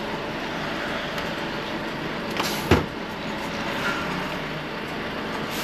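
Volvo FH 540 truck's 13-litre six-cylinder diesel running steadily, with one short sharp thump a little under three seconds in.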